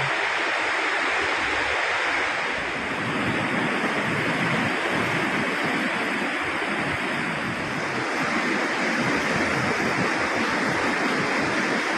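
Rain-swollen river in flood: fast, muddy water rushing and churning in a steady roar of white noise.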